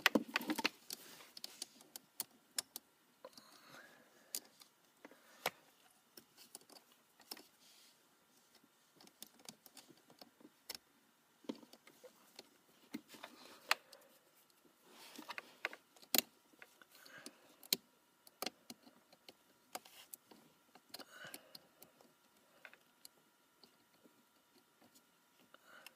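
Scattered light clicks, taps and rustles of hands handling a battery-charger pigtail's wires and metal ring terminals, irregular and spread throughout.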